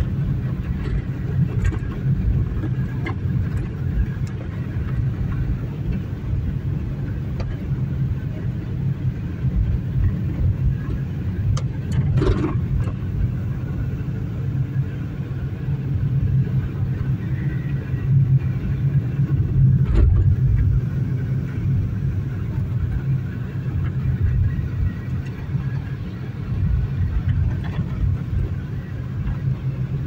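Car driving on a dirt road, heard from inside the cabin: a steady low rumble of engine and tyres, with a couple of short knocks about twelve seconds in and again about twenty seconds in.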